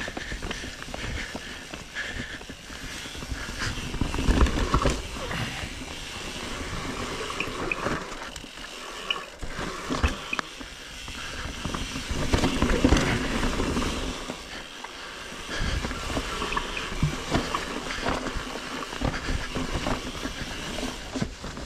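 Mountain bike rolling fast down a dirt singletrack: tyres running over loose soil and leaf litter, with frequent knocks and rattles from the bike over bumps and roots, and wind rushing over the camera microphone, louder in surges.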